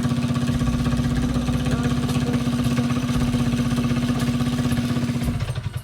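Mini bike's small gasoline engine idling steadily while warming up, then cutting out near the end.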